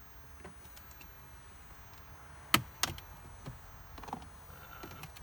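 Plastic trim pry tool working at a Jeep Gladiator's upper dashboard trim panel, with small plastic clicks and, about halfway through, two sharp snaps a third of a second apart as the panel's clips are pried at.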